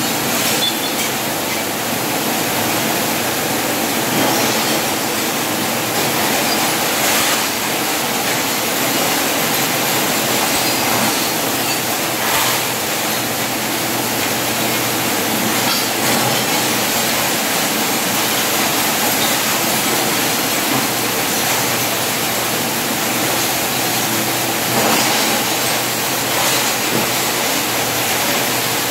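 Electric arc welding on a steel gate: a steady crackling hiss, with a few short louder flares.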